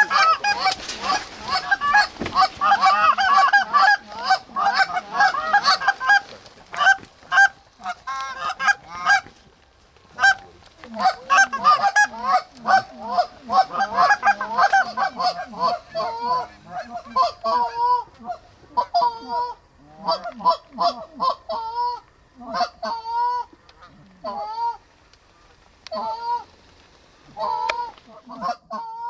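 Canada geese honking: a dense clamor of many overlapping honks for about the first fifteen seconds, thinning to spaced single honks about once a second.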